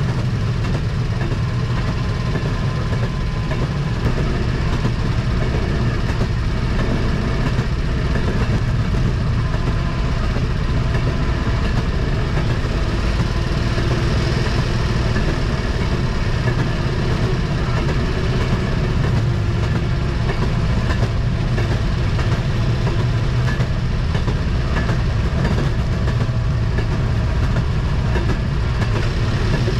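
Railroad speeder (track motorcar) running steadily along the rails: its small engine and the wheels on the track make an even, unchanging sound.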